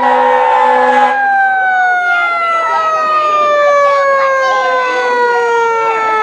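Fire engine's siren winding down, one long wail falling slowly and steadily in pitch. Over its start an air horn sounds and stops about a second in.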